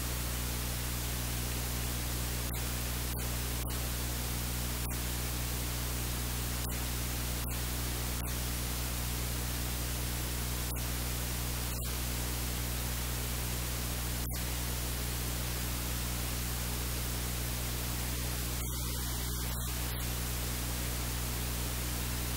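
Steady hiss like static, with a low electrical mains hum underneath and a few brief dropouts.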